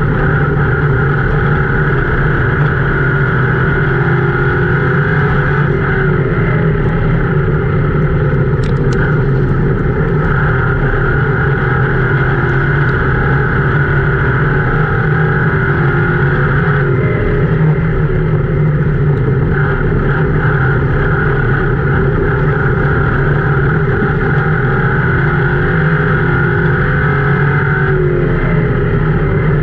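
Ford Crown Victoria race car's V8 running hard at high revs, heard from inside the cabin, with loud road and body noise. The engine note dips briefly and climbs back a few times, about every eleven seconds, as it lifts for the turns and accelerates out.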